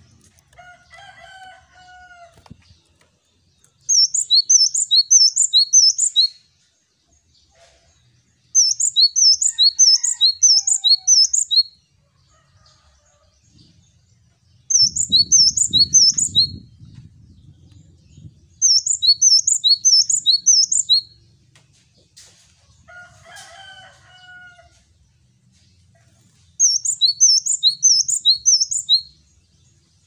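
Male cinereous tit (gelatik batu) singing its two-note 'wucit wucit' song. It comes in five loud bursts of about two seconds each, each a quick run of four or five high repeated phrases, with pauses of a few seconds between. Fainter, lower chirps from other birds fall between the bursts, and a soft low rumble lies under one burst near the middle.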